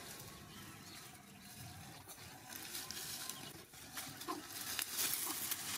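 Leafy branches rustling, with many small crackles and snaps, as baby monkeys climb through a bush. The rustling grows louder near the end.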